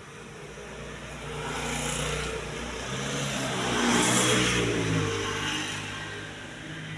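A motor vehicle's engine swelling to its loudest about four seconds in, its pitch dropping, then fading away.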